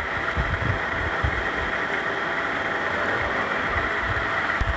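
Steady whooshing background noise with a few soft low thumps, most in the first second or so and one near the end.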